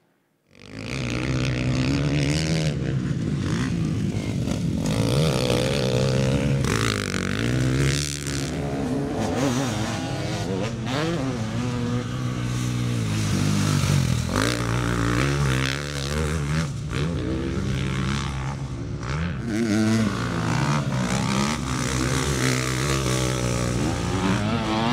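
2022 KTM 350 SX-F motocross bike's single-cylinder four-stroke engine being ridden hard, its revs rising and falling again and again with throttle and gear changes. It starts about half a second in.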